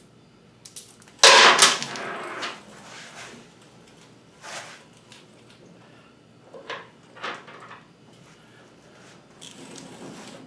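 Knocks and clatter of tools and hardware being handled during motorcycle work: one loud clatter about a second in, then a few lighter knocks.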